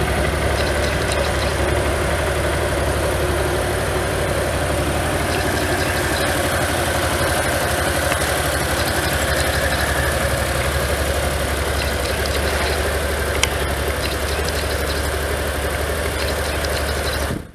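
2009 Honda DN-01's 680 cc V-twin engine idling steadily, an even hum that cuts off suddenly near the end.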